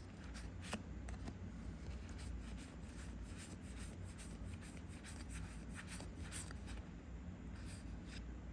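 Trading cards being handled and slid past one another by hand, with soft rustles and frequent light clicks of card edges over a low steady hum.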